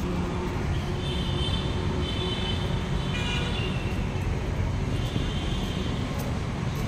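Steady low rumbling outdoor noise, with faint high chirps above it for a couple of seconds.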